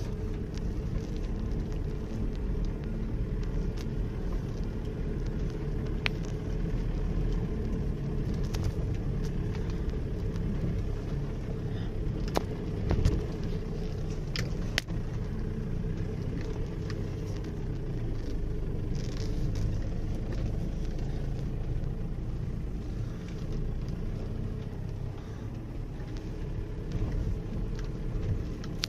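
Ford Endeavour SUV driving slowly over a rough dirt track, heard from inside the cabin: the engine keeps up a steady low rumble, with scattered knocks and rattles as the wheels go over ruts and stones. The loudest knocks come about 13 seconds in.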